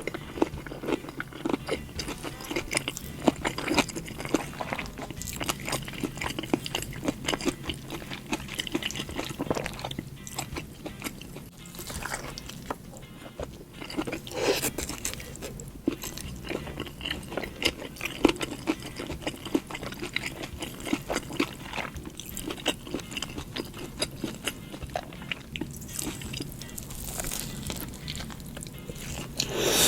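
Close-miked eating sounds: biting and chewing a sambal petai and blue cheese burger, with many short wet smacks and clicks of the mouth. Soft background music runs underneath.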